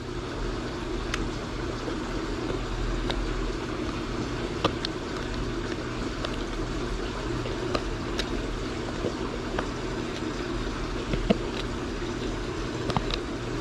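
Steady low background hum and hiss with scattered light clicks and taps from small plastic parts being handled and worked through a cooler fitting.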